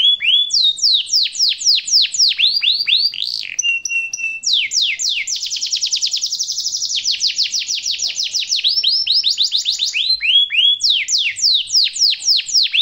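Domestic canary singing a long rolling song: quick runs of repeated downward-sweeping notes, a short steady whistle about four seconds in, and a very fast trill in the middle.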